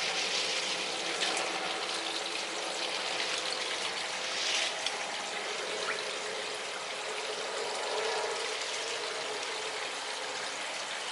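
Water from a small pond waterfall splashing and trickling steadily over rocks into the pond, briefly louder about four and a half seconds in.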